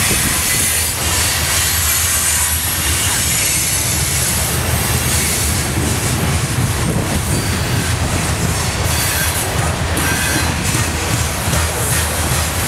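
Loaded covered hopper cars of a grain unit train rolling past close by: a steady rumble of steel wheels on rail, with high-pitched wheel squeal over it.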